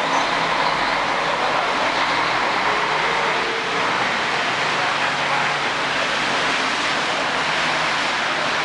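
Heavy rain and road traffic on a wet street: a steady hiss of rain and tyres on wet tarmac, with a faint low engine hum underneath.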